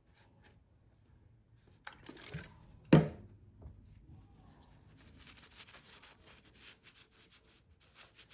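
A sharp knock about three seconds in, then the knife's FRN plastic handle scales being wiped with rubbing alcohol in quick rubbing strokes.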